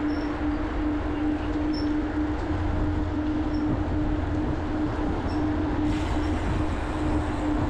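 Steady riding noise from a moving bicycle: wind rumbling on the microphone and tyres rolling on the asphalt path, with a steady hum throughout.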